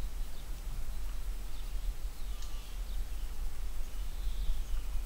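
Quiet outdoor ambience: a steady low rumble with a few faint, short bird chirps, one of them sliding down in pitch about two seconds in.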